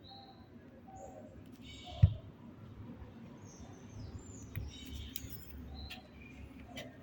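Intermittent high bird-like chirps and short whistling glides, with one sharp thump about two seconds in and a few light clicks near the end.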